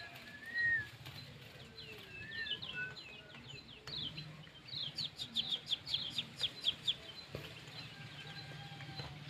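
Kecial kuning white-eye chirping: a quick run of short, high notes that each sweep downward, densest and loudest between about five and seven seconds in, with a few thin whistled notes in the first couple of seconds.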